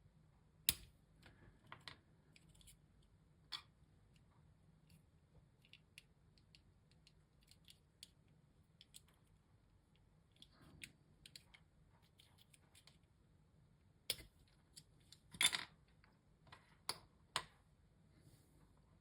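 Small hard-plastic clicks and snaps as Playmobil figures are pulled apart by hand. The clicks are sparse and faint, with a louder cluster about fifteen seconds in.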